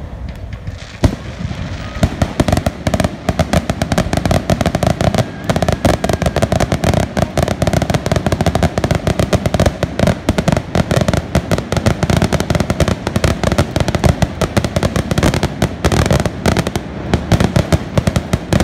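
Aerial fireworks shells bursting in a rapid, unbroken barrage of bangs and crackles that starts about two seconds in.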